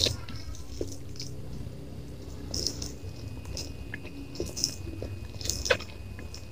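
Close-up chewing of fried noodles, rice and chicken: irregular wet mouth clicks and smacks.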